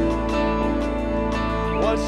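Live worship band playing an instrumental passage between sung lines: sustained keyboard chords with electric guitar over a steady bass.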